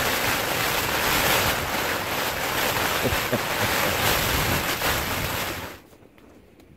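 Heavy wind-driven rain beating on a tent's fabric, a dense, even hiss. It cuts off sharply a little before the end.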